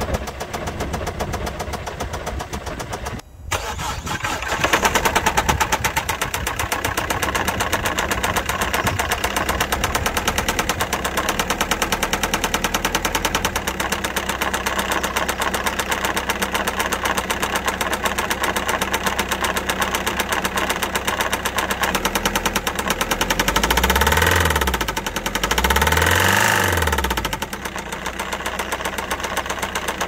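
Citroen C4 Grand Picasso's 1.6 HDi four-cylinder turbodiesel running with a heavy, rapid knock, revved briefly twice near the end. The knock is the sign of an engine ruined by oil starvation, a failed rod bearing according to the uploader.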